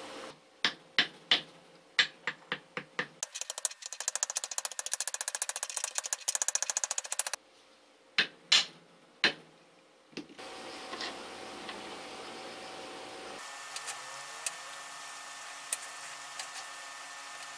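Soft-faced mallet striking the spindle shaft of a vintage electric drill to drive it through its bearing housing in a vise: a run of about eight single sharp taps, then a few seconds of fast, rattling rapid taps, then three more heavy taps about halfway through. After that only faint small ticks of metal parts being handled.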